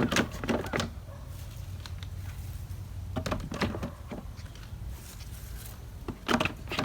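Plastic storage crates knocking and clattering as they are handled and fitted into a wooden nest box frame: three short clusters of knocks, about a second in, around three seconds in and near the end, over a steady low hum.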